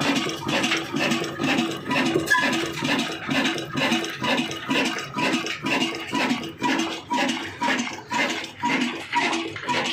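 Old 30 hp stationary diesel oil engine running, with an even rhythmic beat of about two strokes a second.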